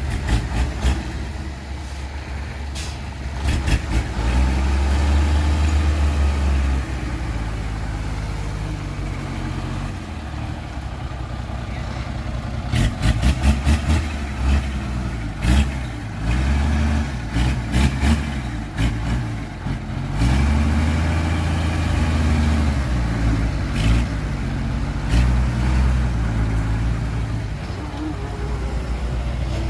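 Heavy diesel engine of earthmoving machinery running, its pitch rising and falling repeatedly as it revs under load, with sharp clanks and knocks scattered through.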